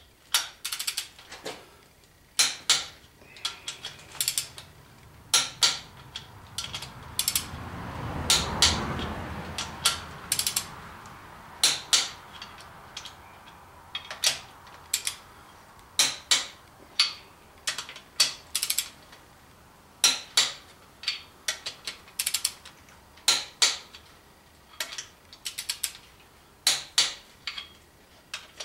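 Ratchet of a torque wrench clicking in short runs as the main bearing cap bolts of a Chevy 350 small-block are pulled down to 50 ft-lb. A soft low rushing noise swells and fades about a third of the way in.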